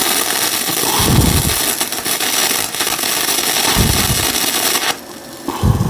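Flux-core wire-feed welding arc from a Yeswelder DP200 crackling steadily as it lays a bead on steel, stopping abruptly about five seconds in.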